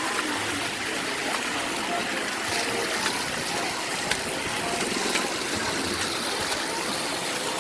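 Water jets spraying steadily: a continuous hiss of running, splashing water.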